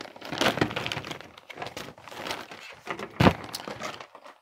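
Plastic model-kit parts sprues being handled and laid on a cutting mat: crinkling of the clear plastic bag and light plastic clicks, with one sharper knock about three seconds in.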